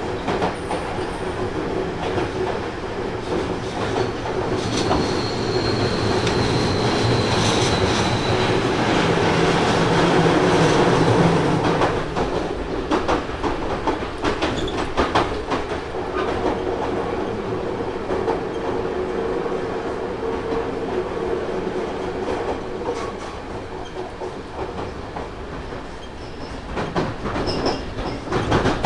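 Inside a Seibu 30000 series electric train (later batch, Hitachi two-level IGBT VVVF inverter) slowing into a station: a steady drone of the motors and wheels on the rails, a thin high squeal about five to eight seconds in, and wheel clatter over rail joints and points around twelve to sixteen seconds in.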